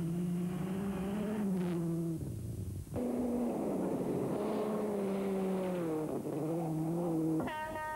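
Toyota Corolla WRC rally car's turbocharged four-cylinder engine running hard at high revs on a gravel stage, in two stretches broken briefly about two seconds in. Its note dips and recovers about six seconds in. Just before the end a steady horn-like tone begins.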